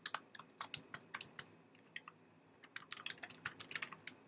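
Typing on a computer keyboard: a quick run of keystrokes, a pause of about a second, then another run.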